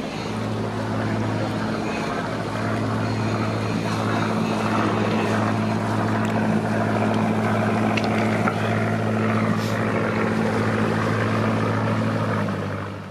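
A river cruiser's inboard engine running at steady cruising speed as the boat passes close by, a low droning hum with its propeller churning the water. The sound drops away sharply near the end.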